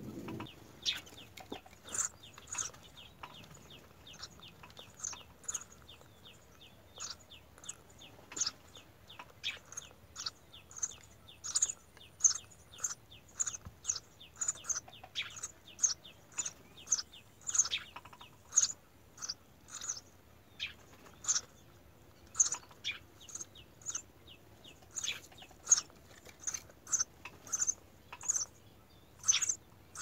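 Eurasian tree sparrows chirping at the nest: a long series of short, sharp chirps, about one or two a second, coming more steadily in the second half.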